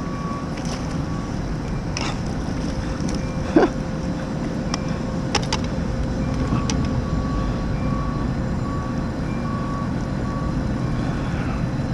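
A boat engine running steadily, a low rumble, with a few sharp clicks and a knock about three and a half seconds in. Faint short beeps repeat through the second half.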